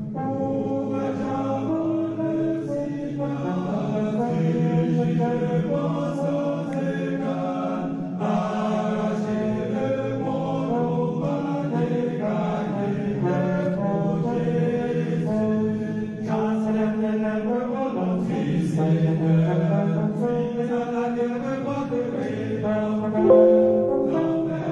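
A group of voices chanting or singing together in long held notes.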